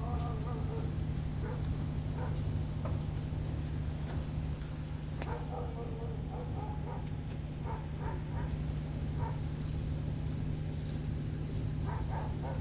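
Crickets chirping in a fast, even, high-pitched trill, over a low steady hum.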